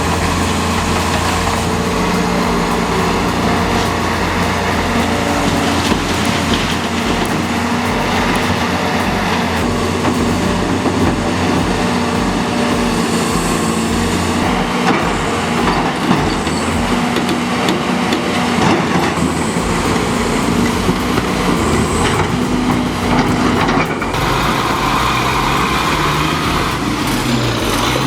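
Heavy earthmoving machine working: a steady engine drone with clanking and rattling.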